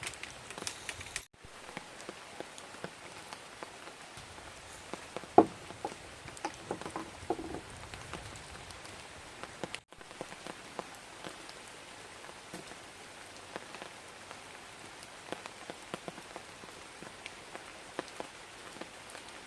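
Rain falling on a surface: a steady hiss dotted with scattered drop ticks, with one louder tap about five seconds in. The sound drops out briefly twice.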